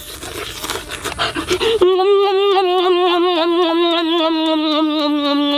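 A man eating noisily, with wet smacking and heavy breathing as he bites into a roast chicken leg. About two seconds in this gives way to one long voiced note of relish from him, held for several seconds and sinking slowly in pitch.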